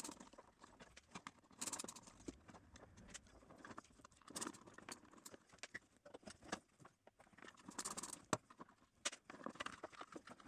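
Faint, scattered clicks, knocks and short scrapes of a hand screwdriver undoing screws and a table saw's plastic switch housing being taken apart by hand.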